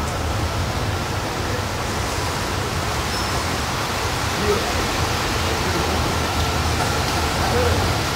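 Steady rushing background noise with a low hum underneath, with no distinct event standing out.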